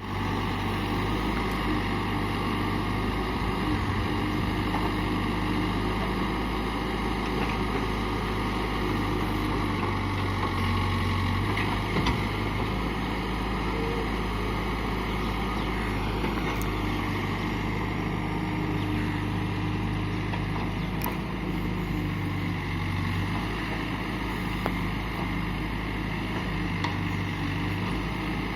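Diesel engine of a JCB backhoe loader running steadily with a low, even hum, with a few faint clicks.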